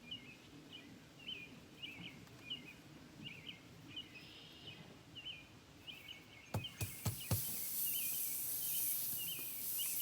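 Small bird chirping over and over in the background; about seven seconds in, a few sharp clicks, then a steady loud hiss starts: air rushing out of the punctured truck tire once the object is pulled from the hole.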